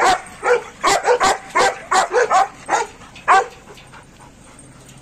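German Shepherds barking in a rapid run of about ten loud barks, which stop about three and a half seconds in.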